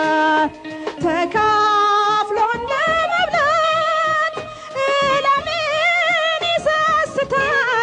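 A song: a singer holds a wavering, vibrato-laden melody over instrumental backing.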